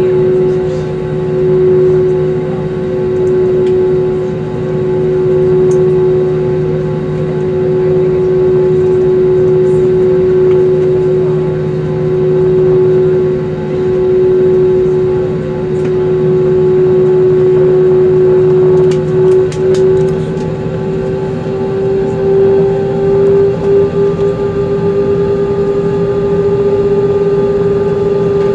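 Cabin noise of an Airbus A320 airliner taxiing: a steady hum from the idling jet engines with a droning tone that rises slightly in pitch about two-thirds of the way through, where a few light rattles are heard.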